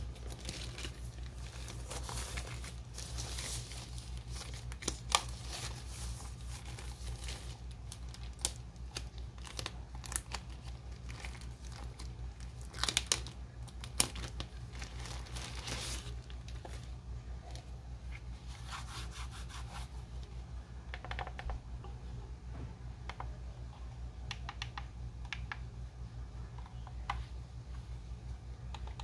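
Drone packaging being handled during unboxing: paper or plastic tearing and crinkling with scattered clicks and taps, busiest through the first two thirds and sparser near the end, over a steady low hum.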